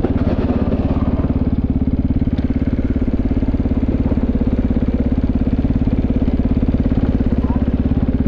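KTM LC4 Enduro's single-cylinder engine running steadily at low revs, close to the microphone, with a fast even pulse.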